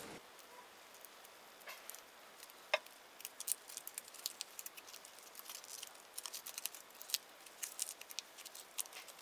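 Small aluminium foil pouch being unfolded by hand: faint, scattered crinkles and ticks of the foil, thicker from about three seconds in.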